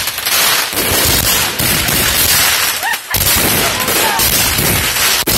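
Fireworks finale: a dense, continuous barrage of overlapping explosions and crackling from many shells fired at once, with a brief lull about three seconds in.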